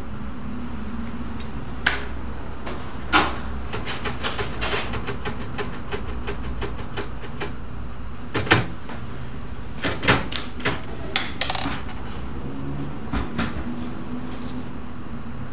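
Old manual typewriter being typed on: uneven runs of key clacks with a few louder strikes, over a steady low hum.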